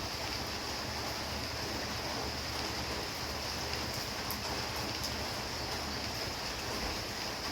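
Steady heavy rain: an even rushing hiss with a steady high-pitched hiss band above it.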